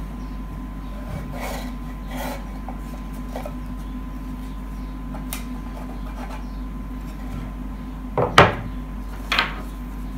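Light rubbing and scraping of printed cards against a wooden box as they are lifted out of it, over a steady low hum. Near the end come two louder knocks about a second apart as the wooden box is moved across the wooden table.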